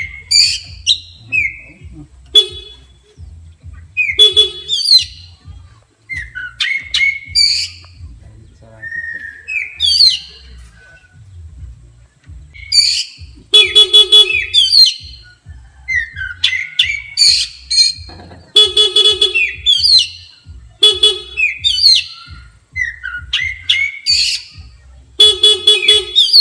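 Oriental magpie-robin (kacer) singing in rapid, agitated phrases of sliding whistles and chirps. Short honks of a horn-like sound, which the bird is reacting to, come about six times between the phrases.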